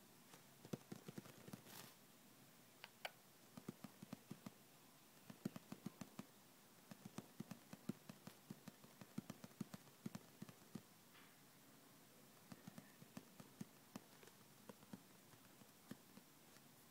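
Lovebird's feet pattering on a hard surface: runs of soft quick taps, several a second, broken by short pauses.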